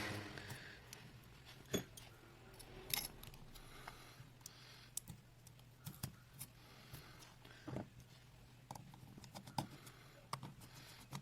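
Faint, scattered clicks and light taps of small repair tools on the parts of an iPhone 6s being taken apart, over a low steady hum.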